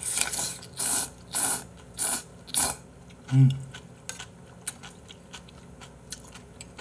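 A person slurping a mouthful of noodles from beef intestine hotpot: about five quick sucking slurps in the first three seconds. A short low hum with falling pitch comes a little past halfway, followed by faint chewing.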